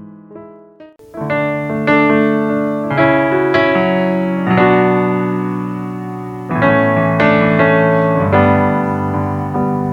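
Keyboard playing slow, sustained chords as the instrumental intro of a worship song, a new chord struck every second or so. The sound dips just before a second in, then comes back fuller.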